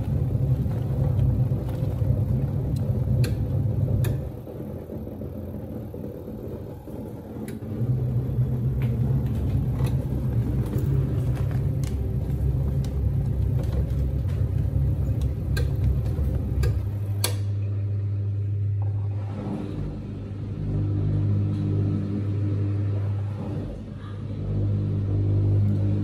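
Hisense 11 kg twin-tub washing machine's wash-tub motor running while the tub drains, churning the water and clothes with a low hum. It stops for a few seconds about four seconds in, then starts again, and its note drops a little past halfway.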